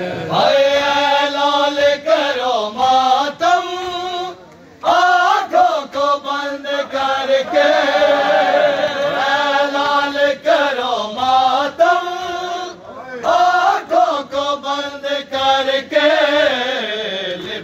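A group of men chanting a Shia noha (mourning lament) in Urdu together, in long held lines, over repeated slaps of hands beating on chests (matam).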